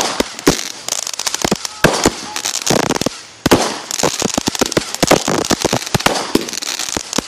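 Fireworks going off: a rapid, irregular run of sharp cracks and pops over a hiss.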